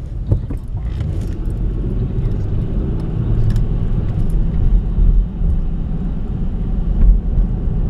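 Car cabin road noise while driving slowly: a steady low rumble of engine and tyres heard from inside the car, with a few light clicks and bumps.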